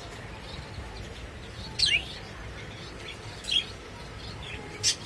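Pet lovebirds giving short, shrill, high-pitched chirps: three loud ones about a second and a half apart, with fainter chirps between them.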